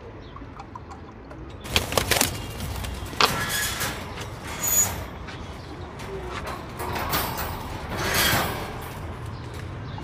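Pigeon drinkers being filled from a plastic water bottle at wire cages: a run of sharp clanks and rattles about two seconds in, then short bursts of pouring, splashing water.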